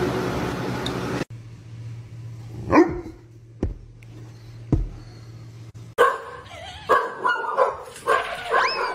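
Dogs barking: a few separate sharp barks, then a quicker run of shorter, higher barks in the last few seconds.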